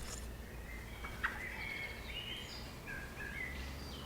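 Several short bird chirps and whistles, some gliding in pitch, with a sharp click about a second in, over a steady low hum.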